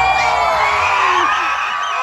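Crowd of fans screaming and cheering, many high voices overlapping in long shrieks and whoops.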